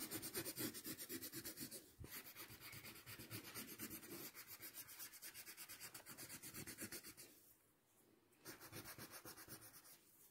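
Paper blending stump rubbed hard back and forth over graphite on drawing paper: a faint, quick scrubbing of short strokes, stopping for about a second twice in the second half.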